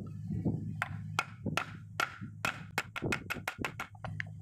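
Steel pliers clicking and tapping against a wooden board: a run of sharp clicks with a slight metallic ring, coming faster toward the middle, over a low steady hum.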